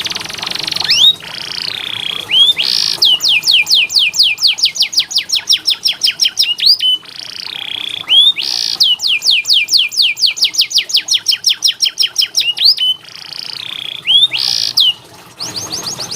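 Domestic canary singing: a wavering whistled note, then a long fast run of falling whistles at about five a second. The same phrase comes twice in a row, and a shorter piece of it follows near the end.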